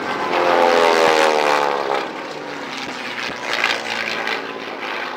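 Propeller warbird with a radial engine making a fast pass. Its engine note is loudest about a second in, drops in pitch as it goes by, and fades as it climbs away.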